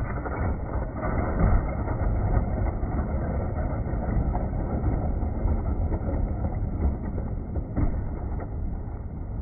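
G-scale model passenger train rolling along garden track, a steady low rumble, with a light knock about eight seconds in as a derailed coach tips down into the water.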